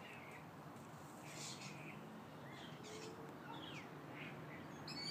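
Birds chirping: short, scattered high calls, some sliding down in pitch, over a faint low hum.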